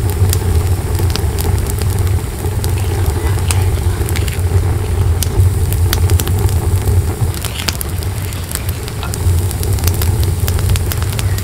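Wood fire burning in the firebox of a clay stove, crackling and popping irregularly over a steady low rumble.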